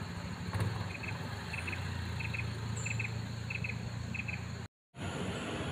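A chirping insect giving short double chirps about every two-thirds of a second over a low, steady engine hum. The sound drops out completely for a moment near the end.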